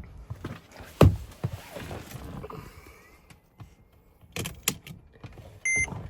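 A loud single thump about a second in, then handling noise and a few sharp clicks, and near the end a short, high electronic beep from a car.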